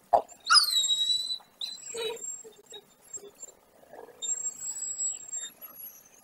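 Wolves whining while greeting one another: a high, thin whine that slides down and holds about half a second in, then softer whimpers and a longer high whine near the end, amid soft rustling in straw.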